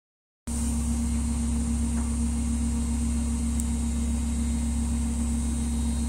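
Privileg Dynamic 7660 front-loading washing machine spinning at speed: a steady low hum with a steady tone over it and a faint high whine, starting abruptly about half a second in. The owner puts the sound down to the motor's special carbon brushes.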